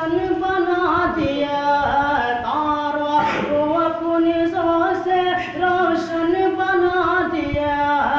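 A man singing a naat, an Urdu devotional poem in praise of the Prophet, unaccompanied, in long held notes that step up and down in pitch.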